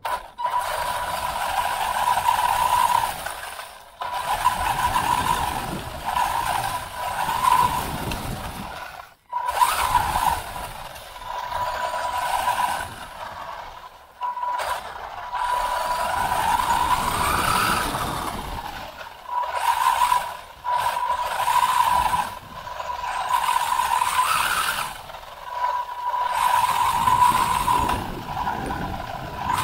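WLtoys 144001 RC buggy's brushed electric motor and gear drivetrain whining, heard from a camera on the car. The whine surges and eases with the throttle and rises in pitch near the middle. It cuts out sharply several times, over a rough rattle from bouncing across bumpy grass.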